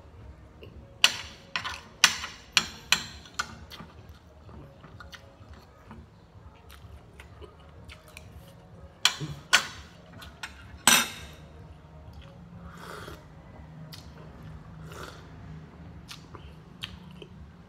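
Metal spoon clinking and scraping against a plate: a quick run of six sharp clicks in the first few seconds, then three more about halfway through, with softer chewing sounds in between.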